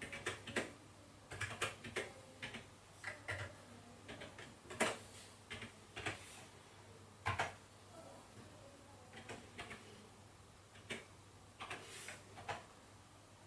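Irregular keystrokes on TheVIC20's full-size computer keyboard: single key clicks and short clusters of two or three, with pauses between them.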